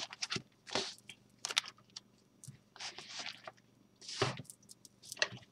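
Oracle cards and their cardboard packaging being handled: scattered soft scrapes, rustles and light taps, each brief, with quiet gaps between.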